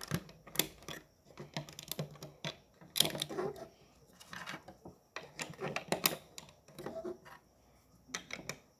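Plastic Lego bricks clicking and clattering as they are handled and pressed together on a wooden tabletop: a dozen or so irregular sharp clicks.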